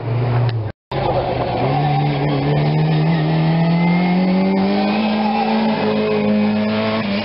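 BMC Mini Cooper rally car's four-cylinder A-series engine under hard acceleration as it approaches and passes, its pitch climbing steadily for several seconds and then holding high. There is a split-second dropout just under a second in.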